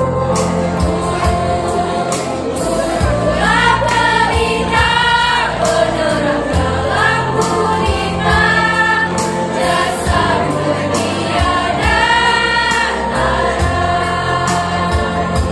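Girls' school choir singing together over a musical accompaniment that keeps a steady beat.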